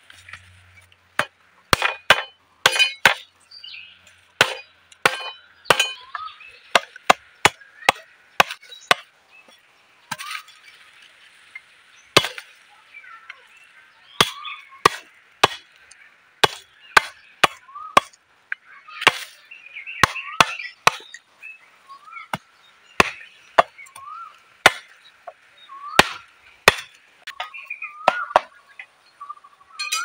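A heavy curved machete chopping and cutting bamboo: dozens of sharp, irregular strokes of the blade against bamboo, some in quick clusters.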